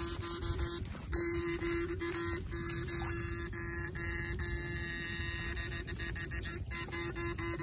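Homemade backpack electrofishing shocker (battery and inverter) buzzing with a steady electrical hum as its electrodes are held in the ditch water. The hum breaks off briefly a few times, amid frequent sharp clicks.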